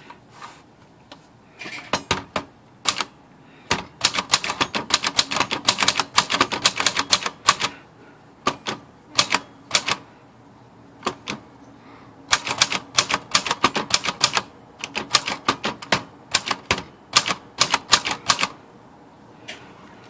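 Keys of a 1960 Royal Royalite manual portable typewriter, freshly cleaned and serviced, typing a line: quick runs of sharp clacks as the typebars strike, with a few short pauses between runs.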